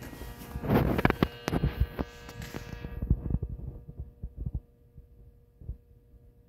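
Stationary Nagano Electric Railway 8500 series (ex-Tokyu 8500) electric train standing at the platform, giving a steady hum with scattered low thumps. During the first three seconds, louder bursts of rushing noise and knocks.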